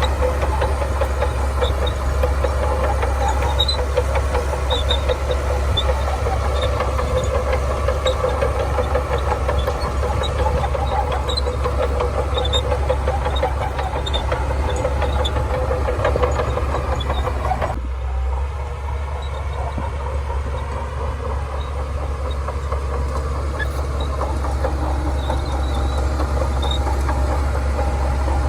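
Shantui bulldozer's diesel engine running steadily under work, a deep drone with a busier mechanical rattle above it. About two-thirds of the way in the sound changes abruptly and becomes a little quieter and duller.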